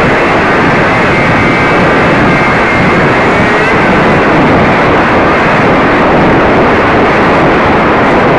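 RC model airplane's motor and propeller, with wind rushing over a camera mounted on the plane: a loud, steady rush with a faint wavering whine above it.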